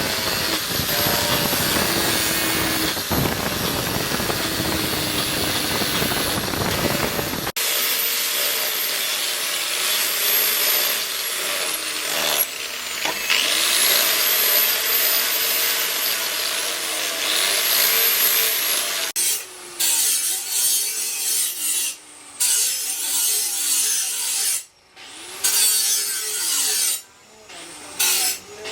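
Abrasive hand-finishing work: repeated rubbing and rasping strokes. After about 19 seconds it comes as separate strokes with short pauses between them.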